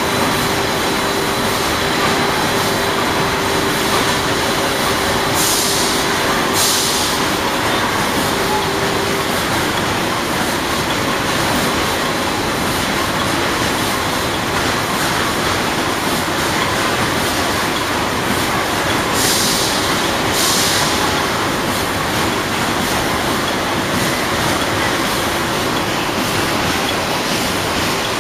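Steady din of a washing-powder filling and packing line, its machines and conveyor belts running. A steady hum stops about nine seconds in, and short hisses come in pairs twice, about five and about nineteen seconds in.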